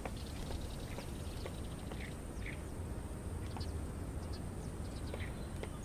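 Outdoor garden ambience: a steady hiss with a thin high whine running under it, and a few short bird chirps around the middle.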